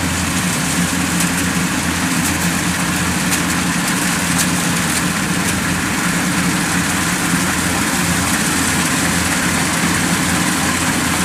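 Kubota DC-105X combine harvesters running steadily under load while cutting rice: a continuous diesel engine drone with the hum of their cutting and threshing machinery.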